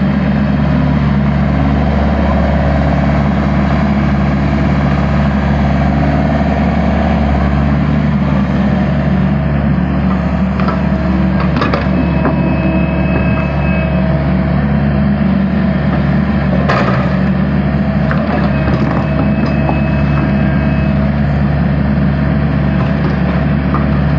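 Heavy construction machine's diesel engine running steadily, with a couple of sharp knocks about halfway through.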